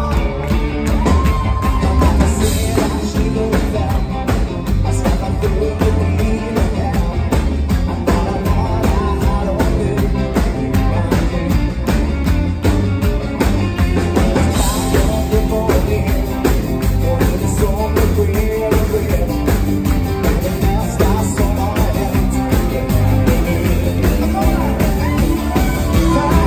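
Dansband playing live: a male lead vocal over electric guitar, bass guitar, keyboards and drums, with a steady beat.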